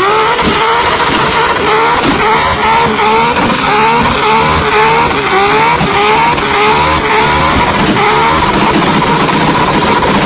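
Car engine revving hard in quick, repeated rising pulls, about two a second, over a steady rush of noise.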